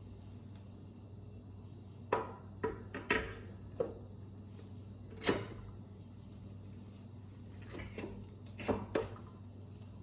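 Several sharp metallic clinks and knocks, irregularly spaced, as small metal tools and parts are handled, over a steady low hum.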